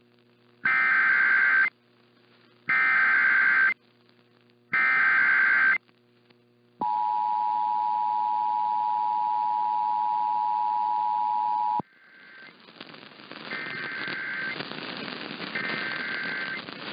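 Emergency Alert System broadcast header: three one-second bursts of the buzzing SAME digital data tones, about a second apart, then the two-tone EAS attention signal held steady for about five seconds before it cuts off abruptly. Near the end, two fainter data bursts come through under a rising hiss.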